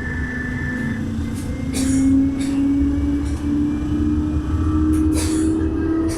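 Guangzhou Haizhu tram running, its motor whine rising gradually in pitch as it gathers speed, over a low rolling rumble with a few light clicks and rattles.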